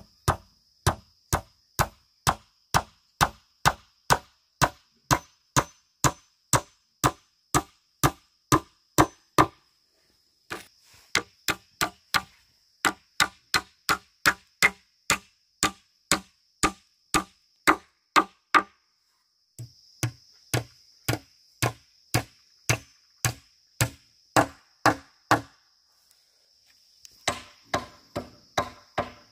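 Steady chopping strikes on bamboo or wood, about two a second, in runs of several seconds with short pauses between, and a quicker burst of lighter blows near the end. Insects buzz steadily in the background.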